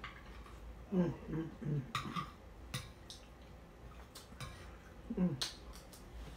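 Eating sounds: a few sharp clicks of a utensil against a plate and of the mouth, with a short hummed voice sound about a second in and again about five seconds in.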